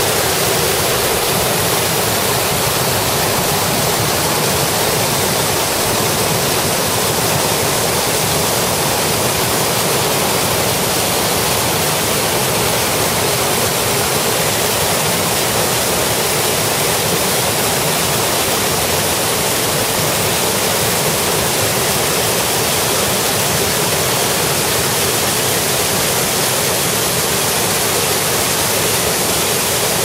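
Aira Force waterfall plunging into its rocky gorge: a loud, steady, unbroken rush of falling water.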